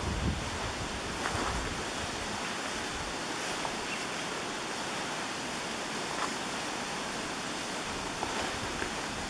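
Steady outdoor hiss with a few faint rustles and snaps of footsteps through leafy forest undergrowth.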